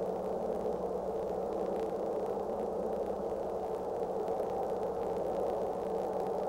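Tugboat's diesel engine running steadily, heard from above under a heavy, even wash of hiss with a faint low hum.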